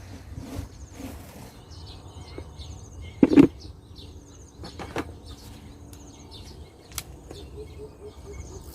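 Insects trilling in short repeated high bursts, with scattered knocks and rustles of handling; the loudest is a thump about three seconds in.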